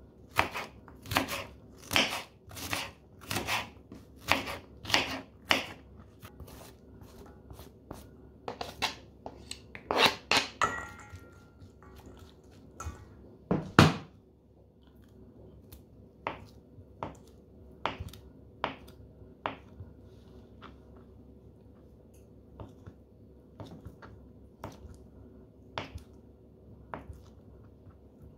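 Kitchen knife chopping through Napa cabbage on a cutting board, about two strokes a second for the first several seconds. One loud knock comes about halfway through, then lighter, sparser knife taps as soft brynza cheese is cut.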